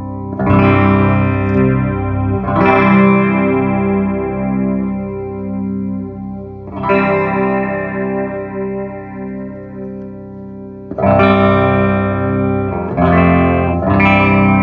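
Electric guitar chords played through an MXR Stereo Chorus pedal with the chorus engaged, giving a gently wavering, shimmering sound. The chords are strummed several times and left to ring between strums.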